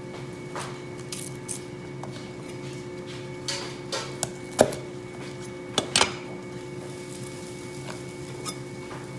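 A few scattered knocks of a Chinese cleaver on a thick wooden chopping block as lemongrass stalks are cut in half and handled. The sharpest knocks come about halfway through. A steady electrical hum sits underneath.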